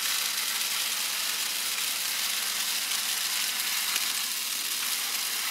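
Spaghetti frying in hot garlic olive oil in a nonstick pan, sizzling with a steady hiss.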